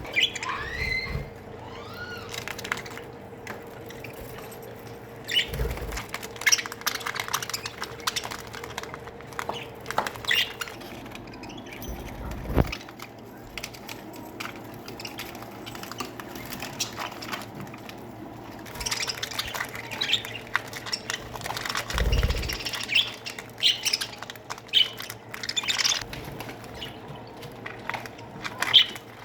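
A colony of budgerigars chattering, with short chirps and squawks that come and go, busier in the second half. There are a few low thumps along the way.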